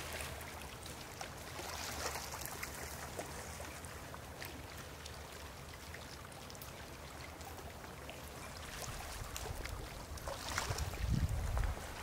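Small waves lapping and trickling among the rocks at the edge of a calm sea, with scattered small splashes. A louder low rumble sets in about ten seconds in.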